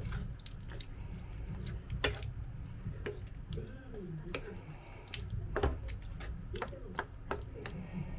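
Pan of chicken afritada stew cooking, the tomato sauce bubbling with many irregular wet pops and clicks.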